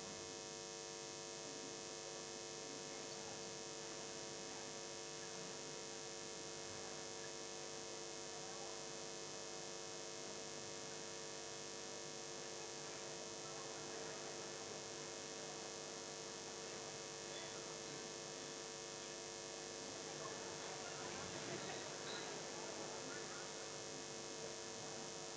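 Steady electrical mains hum, a stack of even unchanging tones, with a faint crowd murmur rising slightly about three quarters of the way through.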